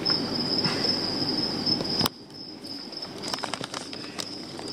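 Plastic bags and crumpled newspaper rustling and crinkling as hands rummage through a shipping box. The rustle stops abruptly with a sharp crack about two seconds in, then returns as scattered crackles. A steady high-pitched whine runs underneath.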